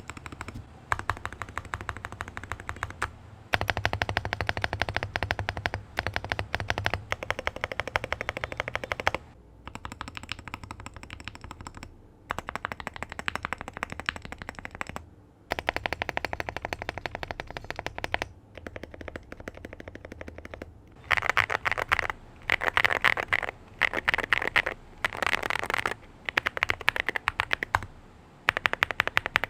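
Fast typing on an Akko MU01 wooden mechanical keyboard fitted with 5-pin linear switches: dense runs of key clacks in bursts of a few seconds, with short pauses between them. About two-thirds of the way in, the clacks turn brighter and louder.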